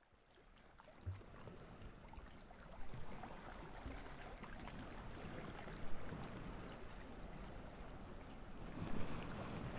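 Water and wind noise fading in from silence, with a few dull knocks.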